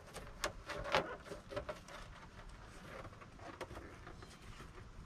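Clear acrylic motorcycle windscreens being handled and pressed together, their protective plastic wrap crinkling: a few sharp crackles and taps in the first second, then fainter scattered crinkling.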